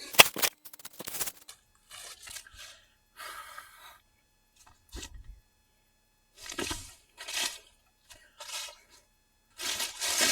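Fallen green oak branches and leafy debris being crunched and scraped: a sharp crack just at the start, then a string of short crunching, scraping bursts with pauses between them.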